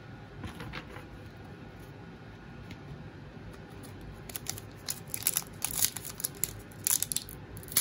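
Foil trading-card pack wrapper being crinkled and torn open by hand, a run of sharp crackles starting about four seconds in, after a few seconds of faint handling.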